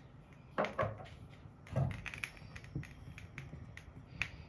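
Hot fat crackling and spitting in a non-stick frying pan on a gas burner, with a few knocks of the pan against the metal pan support as it is moved and swirled.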